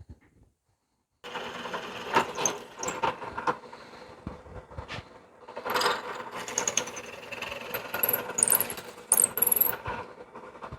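Drill press running and drilling holes in a knife's handle scale, with a steady motor hum, rattling and clicking, and short high squeals from the bit cutting in the second half. It starts suddenly about a second in.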